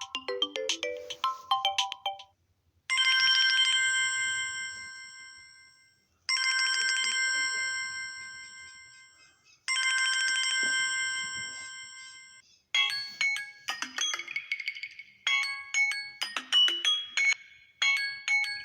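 Samsung Galaxy A01 Core ringtones played in turn. A melody of quick notes ends about two seconds in. Then a bell-like chime rings out three times, each ring dying away over about three seconds, and a different fast melody of short notes starts about two-thirds of the way through.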